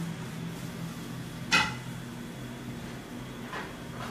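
A frying pan clinks sharply once against metal about one and a half seconds in, ringing briefly, with two fainter knocks near the end. A steady low hum runs underneath.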